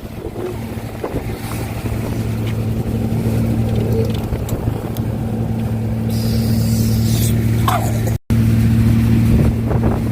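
An engine running steadily with an even low hum, a short high hiss over it about six seconds in.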